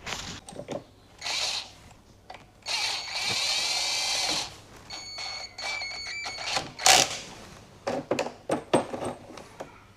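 Bench-repair noises: a few seconds of whirring noise, then a run of short, high steady tones in broken steps, and a sharp knock about seven seconds in, with smaller clicks and handling sounds around them.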